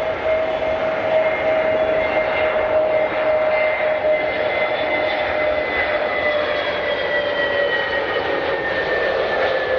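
Jet airliner's turbofan engines passing close by: a loud, steady rush with a whine whose pitch slowly falls as the aircraft goes past.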